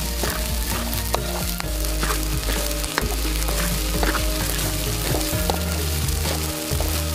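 Fried rice sizzling in a hot pan while it is stirred, with irregular sharp scrapes and clicks of the utensil against the pan; the rice is at the end of its frying, just cooked.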